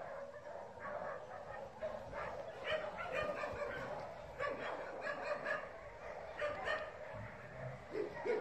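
A dog barking and yipping, in quick runs of short barks.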